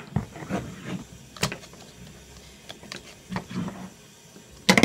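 Plastic toys being handled: a scattered series of clicks and knocks, with a loud knock near the end.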